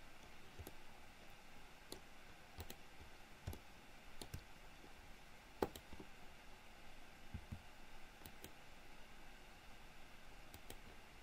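Faint, irregular computer mouse and keyboard clicks, about a dozen, one sharper than the rest about halfway through, over quiet room tone.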